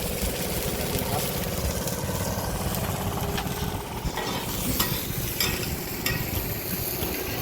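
Hoi tod (mussels in batter) sizzling on a hot frying pan, with a metal spatula scraping and tapping the pan several times.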